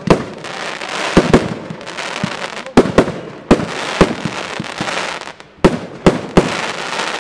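Pyromould Black Wolf firework going off: about ten sharp bangs at uneven intervals, some in quick pairs, with a rushing hiss between them.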